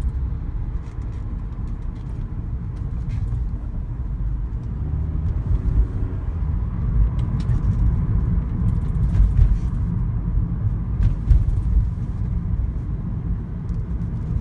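Toyota Prius running with a heavy, uneven low rumble and a few scattered sharp knocks: the car is juddering, which the owner puts down to an engine misfire.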